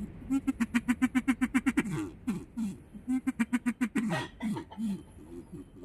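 A chicken clucking in two fast runs of short, evenly repeated notes, about nine a second, with falling notes between and after the runs.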